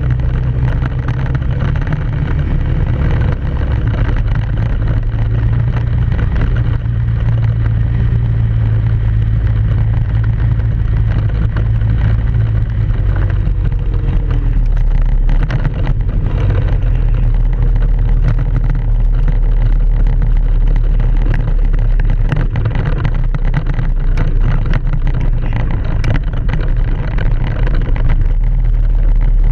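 ATV engine running steadily while riding, with scattered knocks and rattles.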